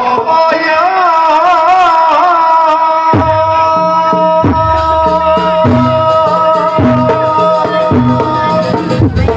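Live jaranan music: a high, nasal melody line holds a long wavering note, and about three seconds in drums and low gong-like strokes enter in a steady beat, roughly one stroke a second.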